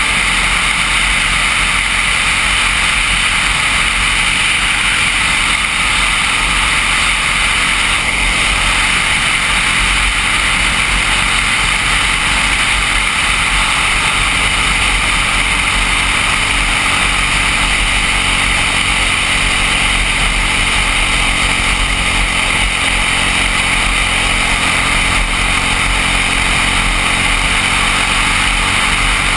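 Briggs & Stratton LO206 single-cylinder four-stroke kart engine running at racing speed, heard onboard with the rush of air as a steady, even, noisy drone.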